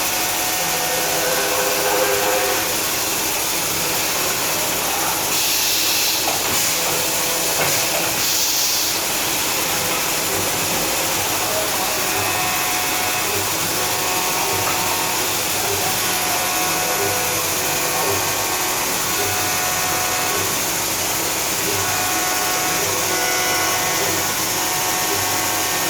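CNC vertical machining center running: a steady mechanical hiss with several faint steady tones, and a brighter hiss from about five to nine seconds in.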